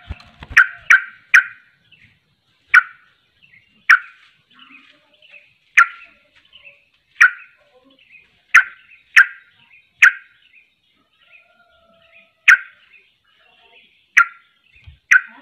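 A caged yellow-vented bulbul (trucuk) calling in short, sharp, loud notes, some single and some in quick runs of two or three, roughly once a second. A brief flutter of its wings comes at the very start.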